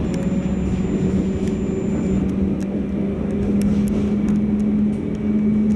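Running noise of a light-rail tram heard from inside its cab: a steady electric hum over a low, even running noise.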